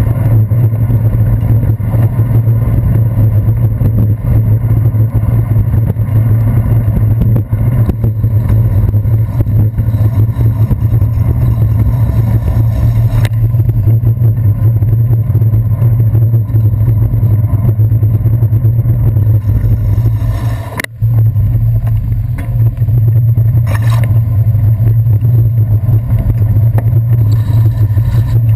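Steady low rumble of road vibration and wind picked up by a handlebar-mounted GoPro Hero 2 as the bicycle rides over wet city streets in traffic. The rumble briefly dips, almost cutting out, about three quarters of the way through.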